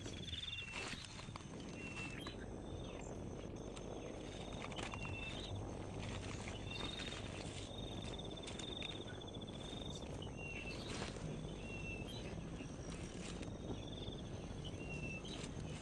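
High-pitched animal chirps and trills repeating every second or two, often a short trill answered by a shorter, lower note, over a steady outdoor hiss.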